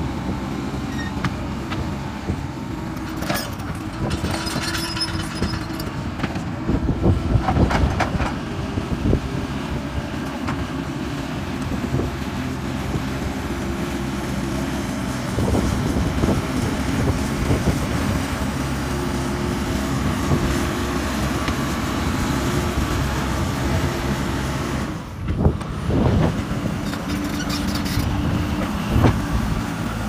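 Diesel engines of a JCB backhoe loader and a tracked excavator running steadily under load, with scattered knocks and scrapes of steel buckets biting into dirt and stone.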